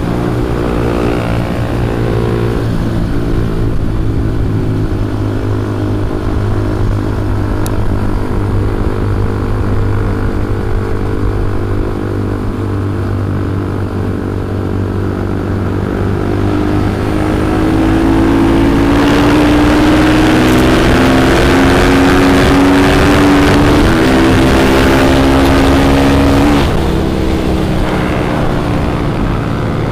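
Motorcycle engine running under way. Its pitch climbs steadily for several seconds past the middle, then drops off suddenly.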